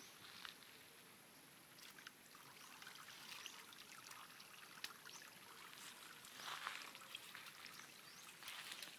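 Near silence: a faint outdoor background with a few soft rustles.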